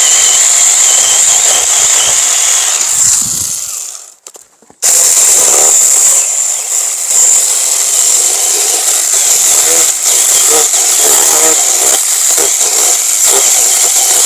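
Small battery-powered chainsaw cutting through a thick Japanese apricot branch, with a steady high motor whine. It stops for about a second around four seconds in, then runs and cuts again.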